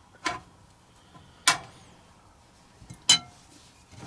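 A utensil clinking against a baking pan three times, spaced a second or more apart, as mounds of scone dough are scooped onto it.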